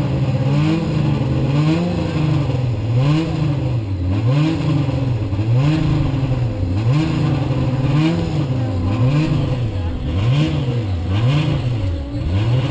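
Formula SAE race car engine running with its speed rising and falling in a regular rhythm, about once a second, during a sound-level noise test.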